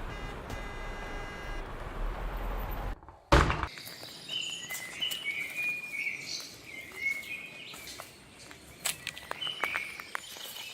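Steady city traffic noise with a car horn held for about a second, cutting off abruptly about three seconds in. After a brief gap comes a single loud thump, then birds chirping and calling with scattered clicks.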